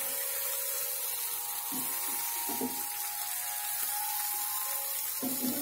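Fried catla fish pieces sizzling steadily in a nonstick pan while a spatula turns them, with a few soft scrapes and knocks of the spatula against the pan.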